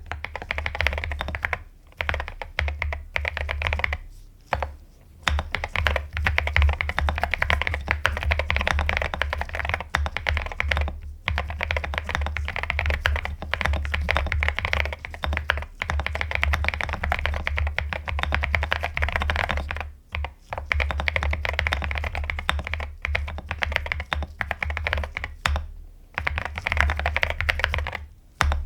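Typing on a mechanical keyboard: a fast, continuous run of keystrokes with a few brief pauses, the longest about four to five seconds in and again around twenty seconds in.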